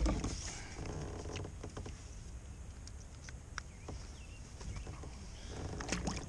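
Handling noise in a kayak: a heavy thump, then scattered light clicks, taps and rustles as a freshly caught bass and tackle are handled, over a low rumble.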